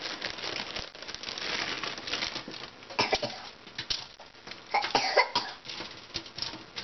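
Aluminium foil on a baking sheet rustling and crinkling as broccoli florets are pushed around and spread out by hand, with small irregular taps. Two short vocal sounds from a person about three and five seconds in.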